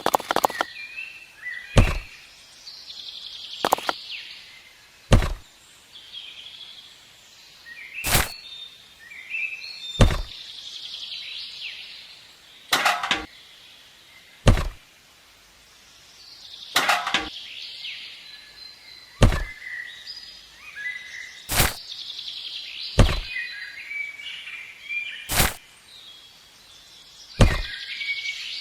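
Small birds chirping and twittering in the background, with a sharp click or knock every one to three seconds.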